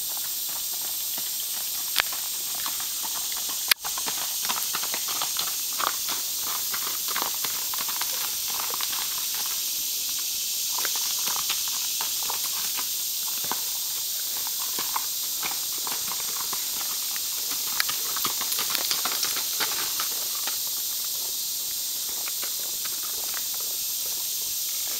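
Pinto horse's hooves clopping on a gravel dirt trail at a walk, a run of irregular steps that grows closer and then fades near the end, over a steady high hiss. A single sharp click sounds a few seconds in.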